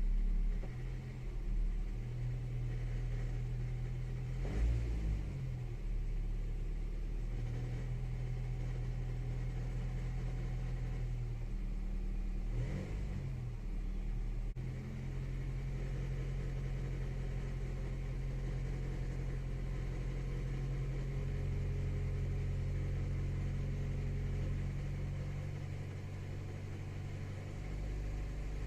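Ninth-generation Honda Civic CVT engine running at low revs in Drive against the brakes, with a vibrating rattle from the serpentine belt tensioner that appears at 1300–1500 rpm; the owner traced it to an old, loose serpentine belt. The revs swing up and back down briefly twice, once near the start and once about midway.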